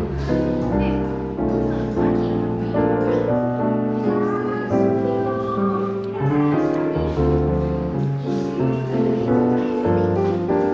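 Smooth jazz piano background music: piano chords over a bass line, with a gliding melody line in the middle.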